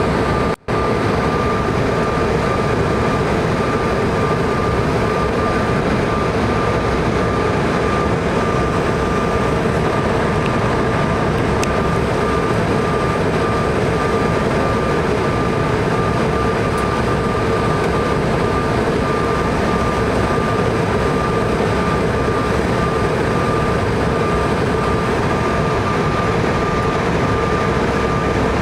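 Cabin noise of a Bombardier CRJ900 on final approach: its rear-mounted General Electric CF34 turbofans and the airflow past the fuselage make a steady rushing noise with a constant high whine on top. The sound cuts out for an instant just after the start.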